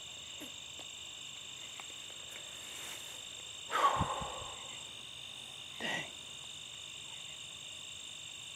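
Steady, shrill chorus of crickets and other field insects at dusk. About four seconds in comes a short, louder sound that falls in pitch, and a fainter short sound follows about two seconds later.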